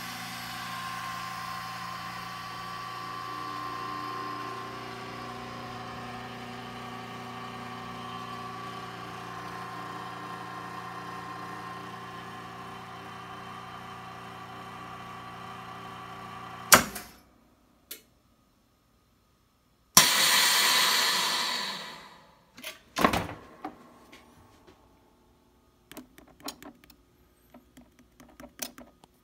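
VacMaster VP215 chamber vacuum sealer's pump running steadily, then stopping with a sharp click about 17 seconds in. After a short quiet pause for the seal, air hisses back into the chamber for about two seconds as it vents, followed by a few clunks as the lid opens and light clicks of the sealed jar lids being handled.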